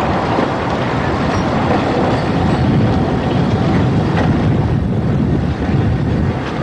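Narrow-gauge passenger train running along the track, heard from an open carriage window: a steady, loud rumble of wheels and carriages with a few faint clicks from the rails.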